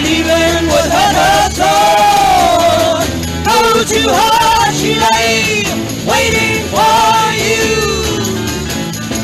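Live 1960s rock band playing an instrumental passage, a lead line bending and gliding in pitch over the full band.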